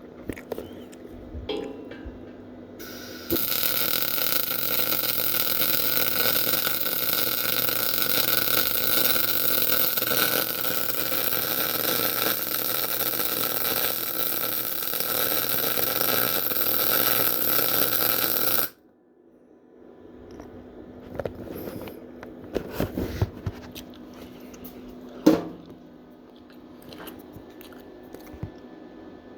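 MIG welder arc running a continuous bead on 3/8-inch flat bar: a loud, steady hiss that starts a few seconds in, holds for about fifteen seconds and cuts off abruptly when the trigger is released. Quieter knocks and clicks of handling follow, one sharp click among them.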